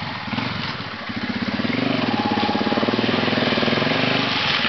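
ATV engine running, getting louder about a second in and then holding a steady, pulsing note.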